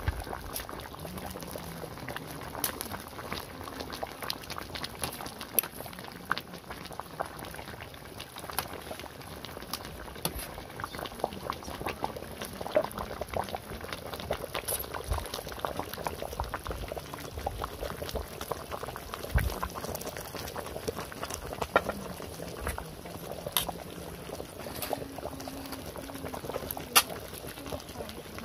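Coconut-milk fish curry boiling in a large metal wok, a steady bubbling with many short pops. Scattered sharp clicks sound through it every few seconds.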